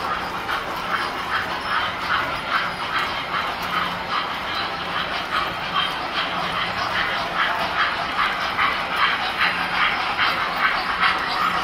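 Ives tinplate model trains running on metal three-rail track: a steady hum and rumble of the motors and wheels, with regular clicking of the wheels over the rail joints.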